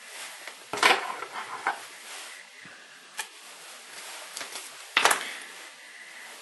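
Fly-tying tools and materials handled on the bench: a few sharp knocks and clicks, the loudest about a second in and about five seconds in.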